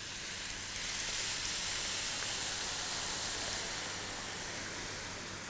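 Broth poured into a hot wok of stir-fried shrimp and vegetables, hissing and sizzling as it hits the hot pan. The hiss swells about half a second in and slowly eases.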